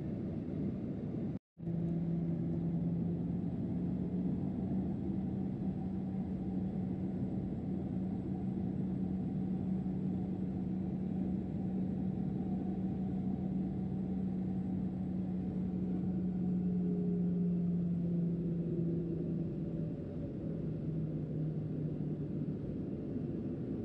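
Cabin noise of a Boeing 737-800: a steady low drone from its engines and airflow, carrying a steady hum that steps slightly lower about twenty seconds in. It cuts out completely for a moment at about a second and a half.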